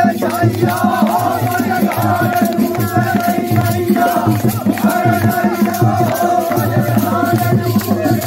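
Holi faag folk song: men singing together over dholak drumming, with metal jingles rattling in a steady rhythm.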